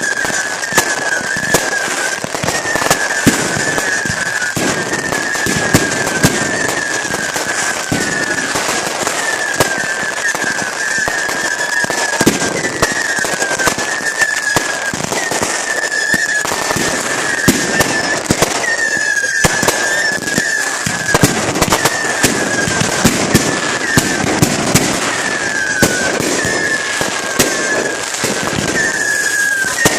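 Fireworks going off in rapid succession: a dense, continuous crackle with many sharp bangs. Over it, a high whistle-like tone repeats about once a second, each one falling slightly in pitch.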